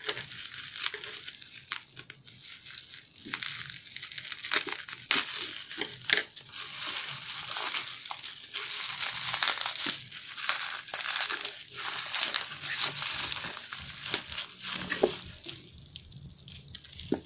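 Plastic bubble wrap crinkling and rustling as it is pulled open and unwrapped by hand, with many irregular sharp crackles. It thins out near the end.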